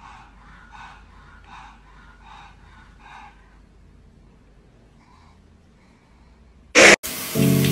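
A pug breathing noisily in about five rhythmic huffs, a little under a second apart, which then fade away. Near the end comes one short, loud burst, and music starts.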